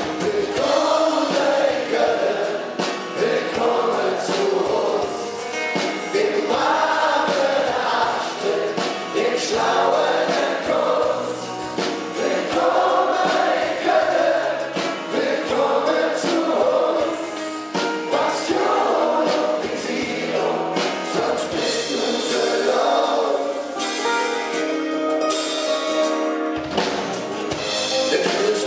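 Several men singing a Kölsch-dialect song together in chorus, with acoustic guitar underneath.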